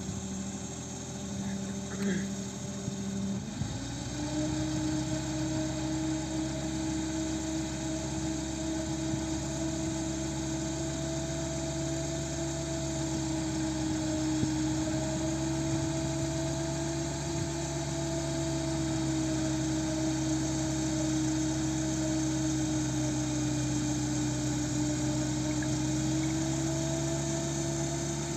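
Engine running steadily and driving a large two-blade rotor mounted on the roof of a Tofaş Şahin car. Its note shifts about three and a half seconds in, then holds steady.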